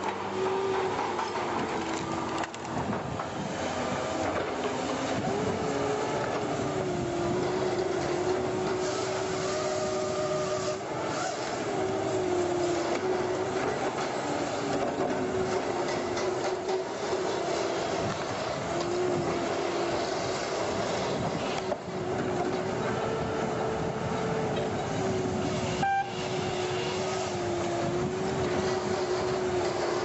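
Heavy diesel engine of a truck-mounted cable-logging tower yarder running under a steady mechanical noise, its pitch stepping up and down repeatedly as it works. A single sharp click sounds near the end.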